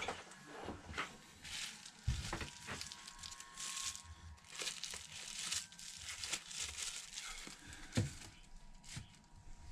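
Light crinkling rustles and small sharp clicks of hands handling the partly assembled phone and its parts on the repair bench.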